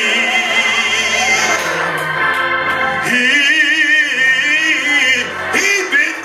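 A man singing a slow gospel song into a microphone, holding a long note with a wide vibrato from about halfway through, with organ underneath.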